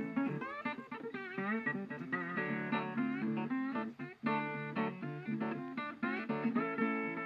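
Background music: acoustic guitar picked and strummed, with sliding notes.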